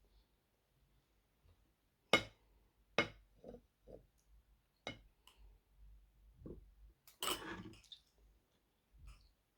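Close-up eating sounds of a mukbang: a few sharp mouth clicks and smacks, spaced irregularly, with a longer wet, noisy stretch a little past the middle.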